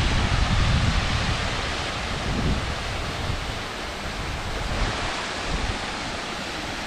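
Wind buffeting the microphone: a gusting low rumble over a steady outdoor hiss, easing off about halfway through.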